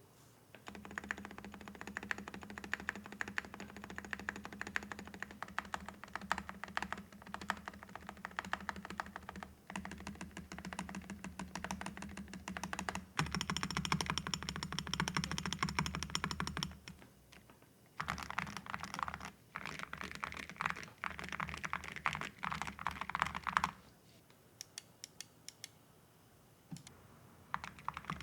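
Typing on a Luminkey60 LX custom 60% keyboard fitted with Gateron Ink V2 Pro Black linear switches and all-metal Awekeys keycaps: fast, continuous key clacks in several runs. There is a short break about 17 seconds in and a quieter spell a few seconds later.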